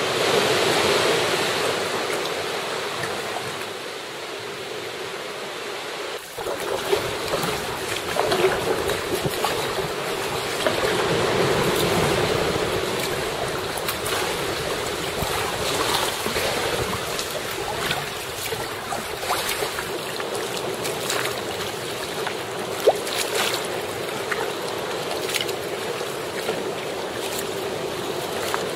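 Sea water washing and sloshing around sea kayaks in choppy water, with scattered splashes from paddle strokes.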